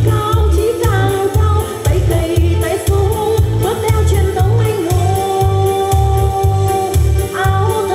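A woman singing a Vietnamese song into a microphone over backing music with a steady bass beat of about two pulses a second; a long note is held from about five seconds in.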